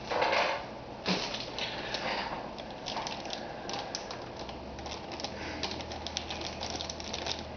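Rustling and irregular clicking of small items being handled, with a low hum coming in about halfway through.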